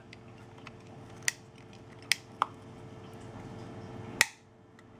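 A few sharp clicks and snaps of a small tool and plastic parts inside an LG G5 phone as the old power button is pried out, with the loudest snap near the end, over a faint steady hum.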